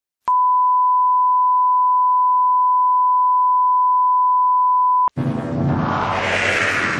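Steady 1 kHz broadcast line-up test tone accompanying colour bars, about five seconds long, cutting off abruptly. A moment later, station ident music starts, with a sweep falling in pitch.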